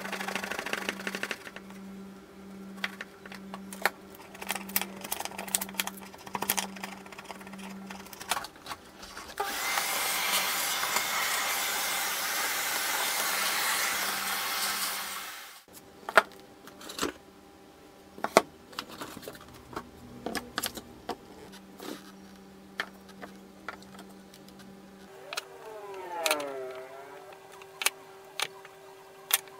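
A hand saw cutting in short strokes at the start, then a vacuum cleaner running steadily for about six seconds and cutting off. After that come scattered sharp clacks and knocks of hardwood pieces being handled and set down.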